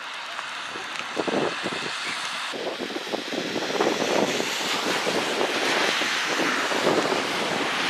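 Wind buffeting the microphone: a steady rushing hiss with irregular gusty thumps that grow a little stronger after about a second.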